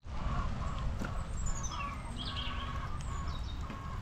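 Small birds chirping and twittering, including a quick descending trill about a second and a half in, over a steady low rumble.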